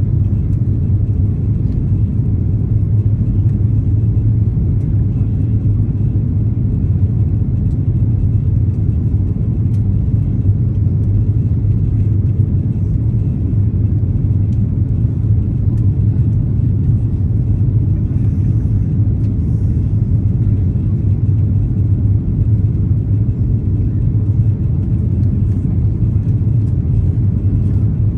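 Steady low rumble of an Airbus A330-300 airliner's engines and airflow heard from inside the passenger cabin, even and unchanging throughout.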